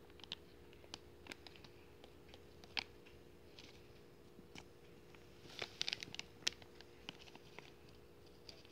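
Light handling sounds as powder is tipped from a plastic packet into a glass bowl: scattered soft clicks and crinkles, with a busier cluster a little past halfway, over a faint steady hum.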